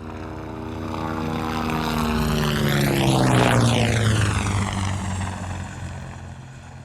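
Helicopter flyover sound effect with a Doppler shift applied. The pitch of the rotor and engine slides steadily down as it passes, and it grows louder to a peak about three and a half seconds in, then fades away. It moves from the left, over the top, to the right.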